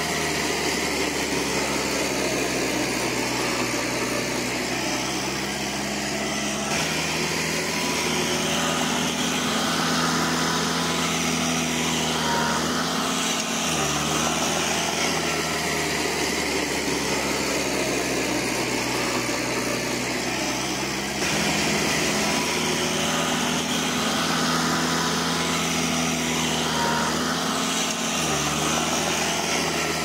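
Heavy-equipment diesel engine running steadily, its pitch shifting slightly now and then.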